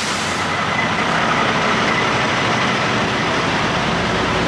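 Steady rush of heavy rain, with a vehicle engine running low underneath.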